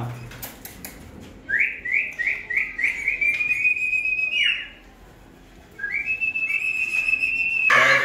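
Clear whistling: about five quick rising notes run straight into a long held note that drops away at its end, then a second long held note after a short pause. A loud sudden sound cuts in near the end.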